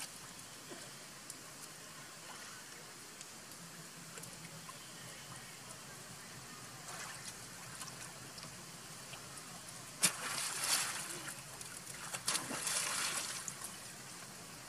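Water splashing as macaques wade and swim in a shallow pool. Two louder bursts of splashing come about ten and twelve seconds in, each a second or so long.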